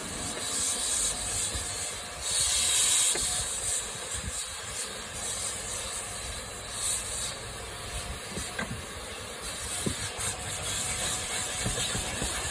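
Vacuum cleaner hoovering a car's rear interior: a steady hiss of air through the nozzle that swells and fades as it is worked over the seats and carpet, loudest about two seconds in, with a few light knocks.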